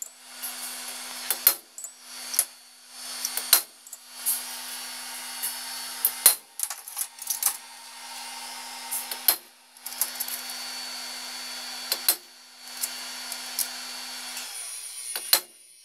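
Hammer blows on steel stamp punches, marking the aluminium cylinder head of a Volkswagen 1.9 diesel: sharp metallic strikes every second or so, unevenly spaced, over a faint steady hum.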